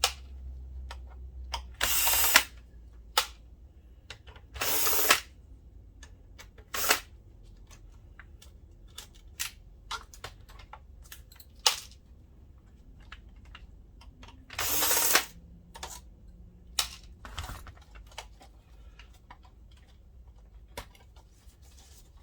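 Electric screwdriver running in three short bursts while screws are backed out of the projector's plastic housing, with many small clicks and taps of screws and plastic parts being handled between the runs.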